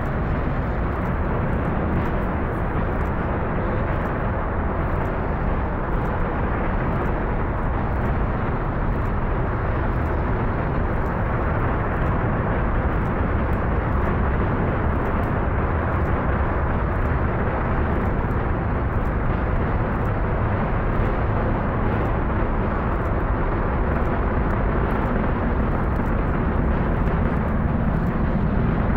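The SLS core stage's four RS-25 liquid-hydrogen rocket engines firing in a static hot-fire test: a steady, unbroken rumble of dense noise, with most of its weight in the low and middle range.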